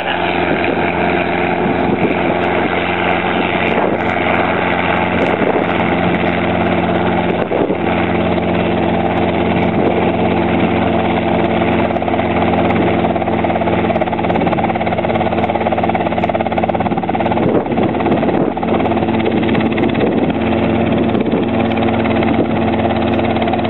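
Robinson R22 helicopter hovering: the steady, even drone of its four-cylinder piston engine and rotor, holding an unchanging pitch.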